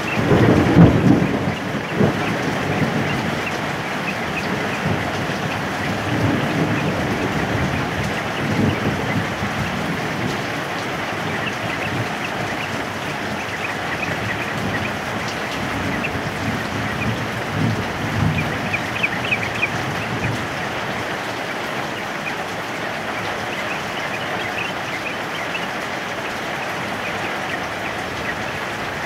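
Heavy rain falling steadily, with low rolls of thunder rumbling at the start and twice more. Faint short bird calls come through now and then.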